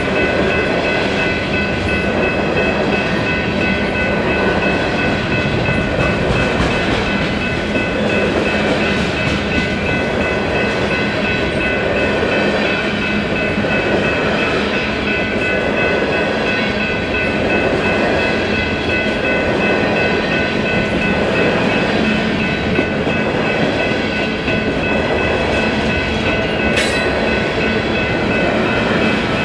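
Empty grain shuttle train's cars rolling past, a steady rumble of steel wheels on rail with a steady high ringing over it. There is one sharp click near the end.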